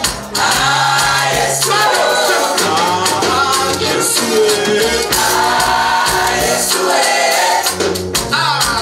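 Choir singing a Swahili gospel song, backed by bass and percussion.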